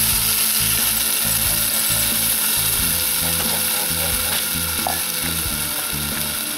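Beef broth sizzling in a hot cast-iron Dutch oven over campfire coals, a steady hiss.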